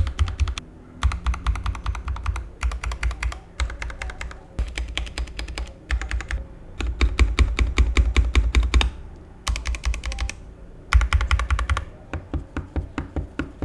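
Typing on an Epomaker TH80 mechanical keyboard with Gateron Pro Brown tactile switches: fast runs of key presses in bursts of a second or two, broken by short pauses.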